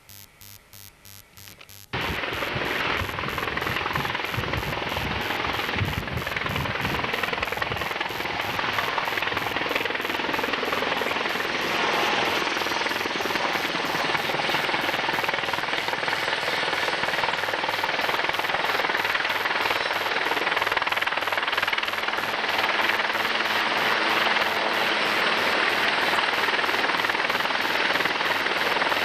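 Helicopter flying in close and landing on an offshore platform helideck: a loud, steady rush of rotor and turbine noise that starts abruptly about two seconds in, with low rotor thudding through the first several seconds.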